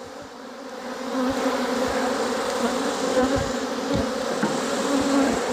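Swarm of honey bees flying around an opened hive, a steady buzzing hum that swells about a second in.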